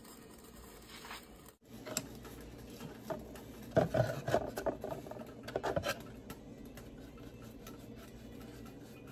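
Cut plastic bottle being handled and flexed, its thin strips clicking, crinkling and scraping in a flurry of small taps between about two and six seconds in, loudest around four seconds, then quieter handling.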